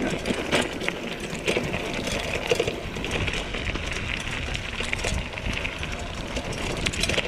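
Mountain bike rolling over a stony dirt track: tyres crunching on gravel over a low rumble, with irregular knocks and rattles as the wheels and suspension fork hit stones, a few louder jolts in the first few seconds.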